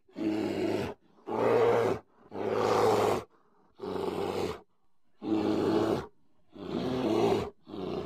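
Polar bear calling in a rapid series of short, low-pitched roars, about seven in a row, each under a second long with brief pauses between.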